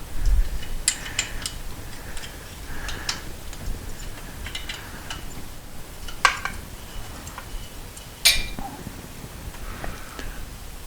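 Metal hand tools clicking and clinking as a 13 mm wrench works loose the oil feed line fitting on a motorcycle engine, with two sharper clanks about six and eight seconds in.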